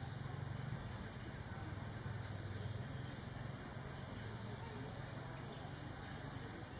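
Insects trilling in forest: evenly pulsed, high trills, each about a second long, repeating with short gaps, over a low steady hum.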